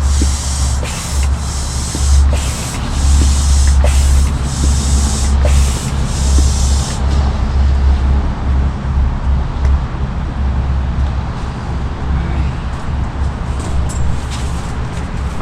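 Air pump pushing air into an inflatable raft seat: a hiss in repeated strokes, roughly once a second, for about the first seven seconds, then fainter. A steady low rumble runs underneath.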